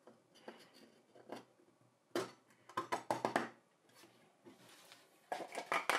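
A golf ball knocking inside a hand-held 3D-printed plastic sphere lined with aluminium foil: a few scattered knocks, then, about five seconds in, a fast rattle as the sphere is shaken.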